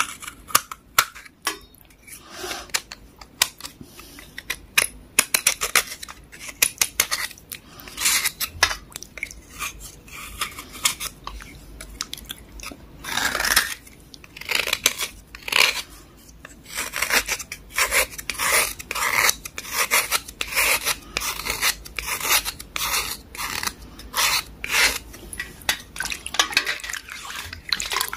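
A knife blade scraping the soft, water-soaked surface off a black chalk 'KitKat' block in many short, rapid strokes.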